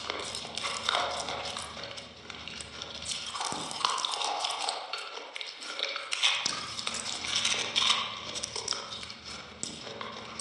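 Close-miked mouth sounds of eating a soft, creamy dessert: a quick run of short clicks and chewing sounds.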